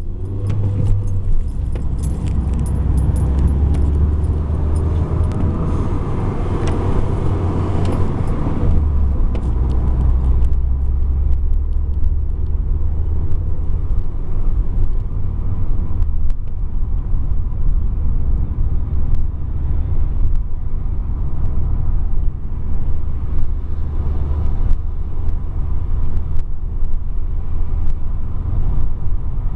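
A car's engine and road noise heard from inside the cabin while driving, a steady low rumble. For the first eight seconds or so the sound is fuller and busier, then it settles to an even drone.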